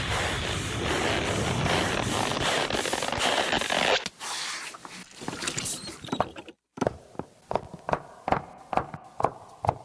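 A dense rustling hiss for the first four seconds, then, after a brief pause, a quick run of sharp knocks about two to three a second: a large knife cutting risen dough into pieces, the blade striking the floured wooden board each time.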